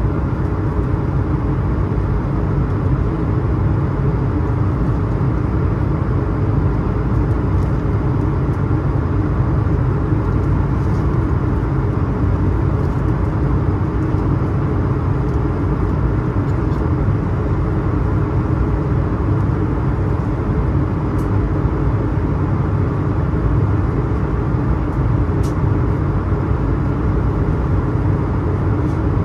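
Steady cabin noise of an Airbus A220-300 in flight: the constant low rush of airflow and the Pratt & Whitney PW1500G geared turbofan engines, holding an even level throughout.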